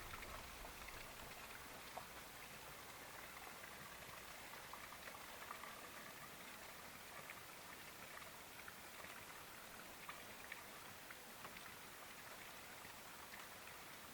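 Faint light rain: a low steady hiss with scattered small drop ticks.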